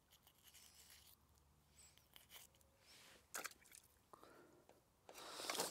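Near silence with faint small clicks and rustles of hands handling fishing tackle while baiting a hook, and a brief louder rustle near the end.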